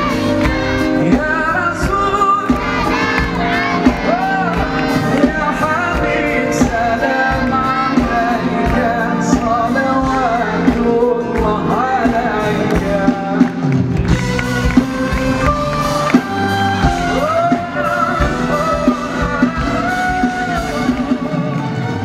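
Music: a man singing a song with instrumental backing, his voice bending through long ornamented notes.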